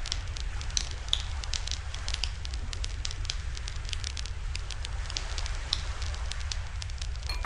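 Wood fire crackling, with many small sharp pops at irregular intervals over a steady low rumble.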